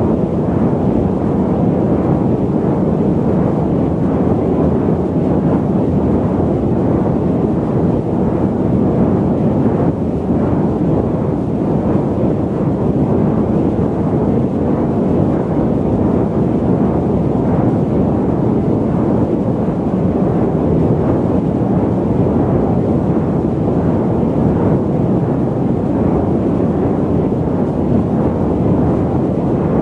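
Jet airliner cabin noise in cruise flight: a steady, deep rushing drone that stays even throughout, with little treble.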